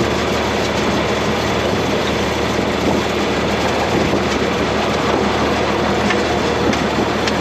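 John Deere 4020 tractor engine running steadily, heard from inside its cab.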